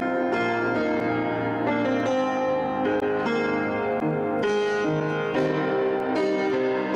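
Piano music: a melody of sustained notes changing every half second or so.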